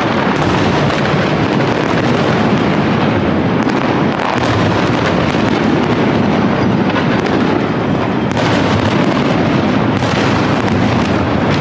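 Fireworks going off in a dense, continuous barrage of bangs and crackles.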